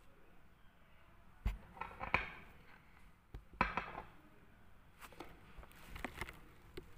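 A few scattered knocks and clicks of a small glass foundation bottle being handled and set down on a tiled surface, the sharpest about one and a half, two and three and a half seconds in.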